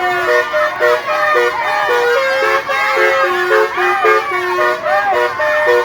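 Telolet musical horns playing a quick tune of short stepped notes, overlaid with repeated rising-and-falling siren-like whoops.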